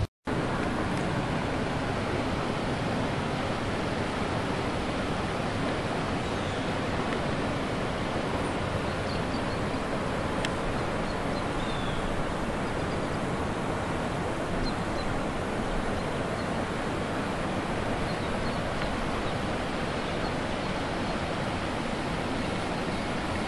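Shenandoah River running fast and high, a steady rushing of water.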